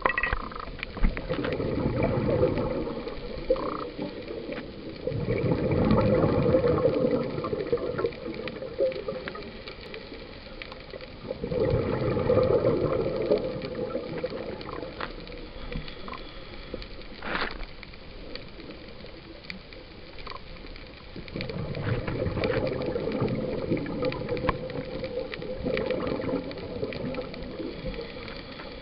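Scuba breathing heard underwater: three long, low gurgling rushes of exhaled bubbles from a diver's regulator, with quieter gaps between them that hold scattered clicks and crackle from the reef.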